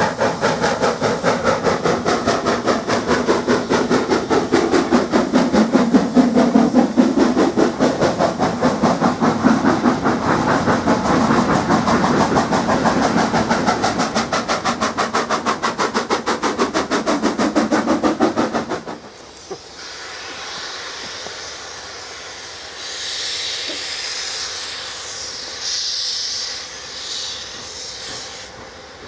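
Hunslet Austerity 0-6-0ST steam locomotive working hard with a goods train: rapid, even exhaust beats. After about nineteen seconds it cuts to a quieter steady hiss of steam from a small Bagnall 0-4-0ST saddle tank, its cylinder drain cocks blowing.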